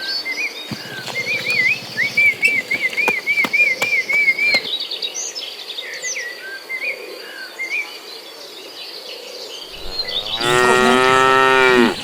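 A cow gives one long moo starting about ten seconds in, the loudest sound here. Before it, a small bird chirps in a quick run of short notes, over a faint steady high insect drone.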